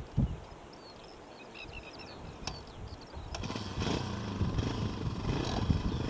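A motorcycle engine starts to be heard about three seconds in and keeps running, getting louder, with a steady low hum. Before it, small birds chirp faintly and there is a short thump near the start.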